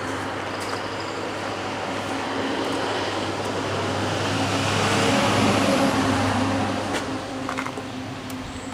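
A road vehicle passing by, its noise swelling to a peak about five seconds in and then fading, over a steady low hum.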